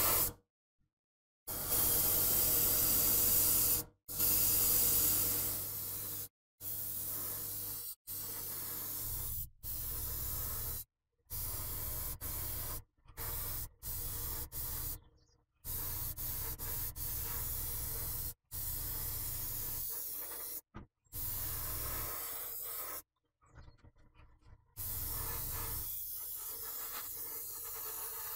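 Airbrush spraying primer in a string of short hissing bursts, each one to three seconds long and cutting off abruptly, over a faint steady hum. The bursts a few seconds in are the loudest.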